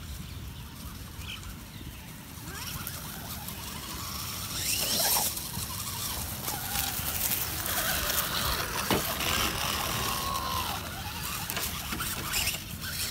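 Scale RC pickup truck driving over dry leaf litter and grass, its tyres crackling through the leaves, louder from about two and a half seconds in. Its electric motor whines up and down in pitch as it speeds up and slows.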